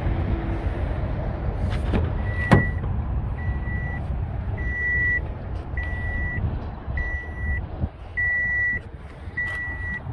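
The pickup's driver door unlatches with a sharp click about two and a half seconds in. Right after, the truck's door-open warning chime starts and repeats, a short high beep about every second and a quarter, seven times, over a steady low rumble of wind and traffic.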